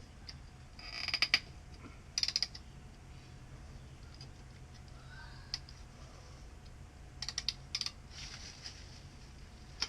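Short bursts of rapid clicking and creaking, three times, as a stuck old outdoor faucet is worked loose from its fitting.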